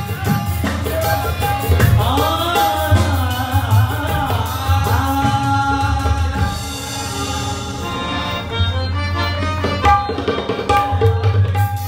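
Live qawwali music: harmonium with steady tabla drumming, and a singer's wavering melodic line in the middle stretch.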